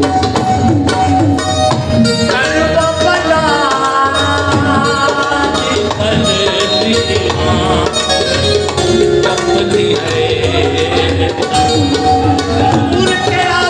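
Sufi dhamal music: a man singing through a microphone and loudspeaker over fast, steady hand-drumming. The voice comes in strongly about two seconds in.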